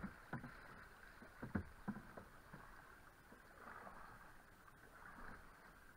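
Faint, steady rush of river water around a canoe moving through a fast riffle, with a few soft knocks in the first two seconds.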